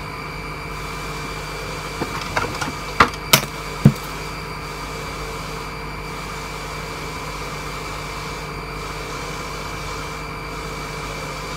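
Steady mechanical hum of a machine running in the background, holding several constant pitches. A few short clicks and taps come between about two and four seconds in.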